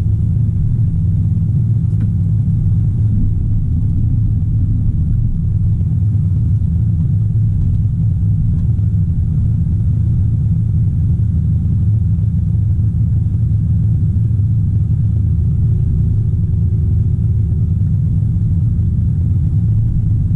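Excavator's diesel engine running steadily, heard from inside the cab as a low, even drone.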